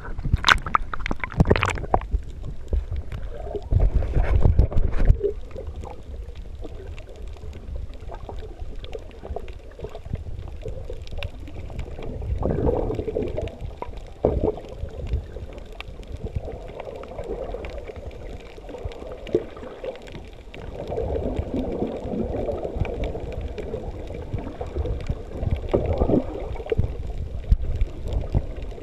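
Underwater sound picked up by a camera: splashing at the water's surface in the first seconds, then muffled gurgling of bubbles in repeated bursts from scuba divers' exhaled air.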